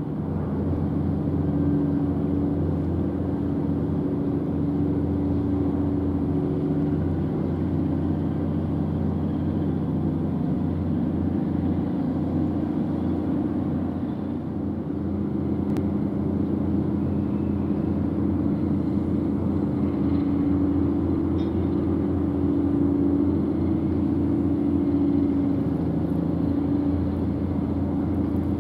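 Ships' diesel engines running with a steady low rumble and hum as a harbour tug pushes a large patrol ship in to its berth.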